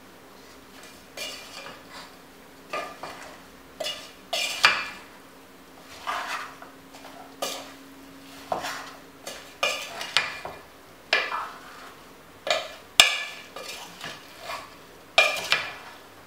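A wooden spatula stirring raw beef, onions and spice powders in an aluminium pressure cooker pot, scraping and knocking against the pot's side every second or so.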